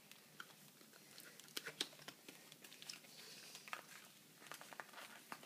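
Faint, scattered crinkling and small clicks of plastic wrap and a tight cardboard box as a cube is worked out of its packaging.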